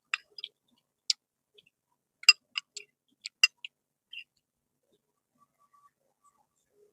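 Close-up eating sounds of a person eating: about a dozen short, sharp clicks and smacks at uneven intervals, bunched together around the middle.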